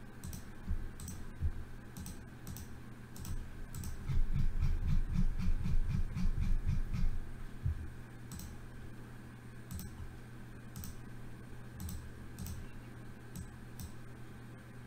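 Computer keyboard and mouse clicks, irregular single clicks with a quicker run of tapping from about four to seven and a half seconds in, over a faint steady hum.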